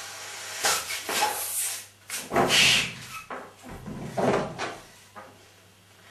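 Latex balloon being blown up by mouth: several gusty breaths, each about half a second to a second long, with sharp intakes of breath in between.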